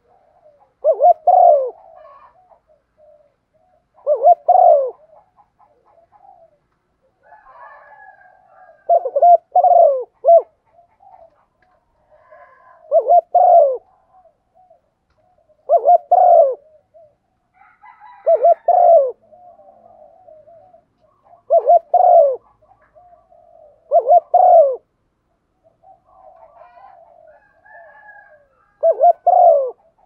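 Female spotted dove cooing: about nine short bursts of two or three quick notes, repeating every few seconds. This is the female's coo used to excite and draw male doves.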